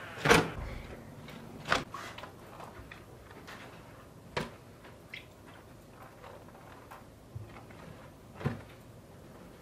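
Kitchen handling noises: a handful of separate sharp knocks a few seconds apart, the first the loudest, as flatbreads are handled around a pot on a gas stove.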